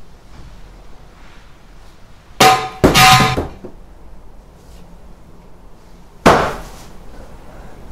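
Glass-fronted picture frames knocked off a wall, clattering with a glassy ring: two sharp hits close together about two and a half seconds in, then one hard crash about six seconds in that rings and dies away.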